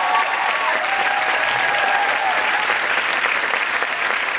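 Theatre audience applauding: dense, steady clapping from a full house.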